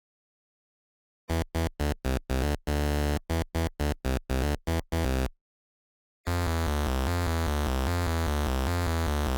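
Synthesized electronic sound: about a second in, a rapid run of short, evenly chopped tones, a brief gap, then one long held buzzy tone whose pitch steps about.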